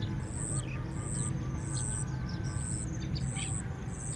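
Small birds chirping in short, falling notes over a high-pitched buzz that pulses about every 0.7 s, with a low rumble of wind on the microphone.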